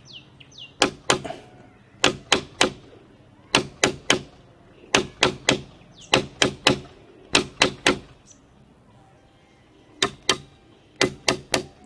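Pliers tapping the metal-capped end of a small chisel's handle, driving its point into a coconut shell to punch a hole. Sharp taps come in quick groups of two or three about once a second, with a short pause before the last few.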